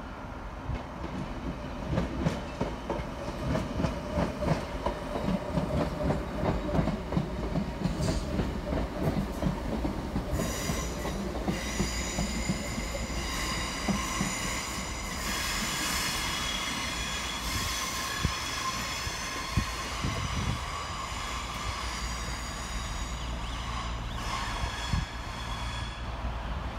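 Class 319 electric multiple unit running past: a rapid run of wheel clicks over rail joints and points for about the first ten seconds, then a high-pitched steel wheel squeal that sets in about ten seconds in and dies away near the end.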